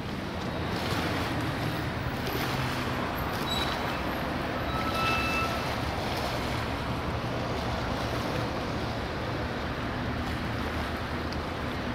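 Airbus A380's four Rolls-Royce Trent 900 turbofans running at low power as the airliner taxis, a steady jet rumble and hiss with a low hum underneath.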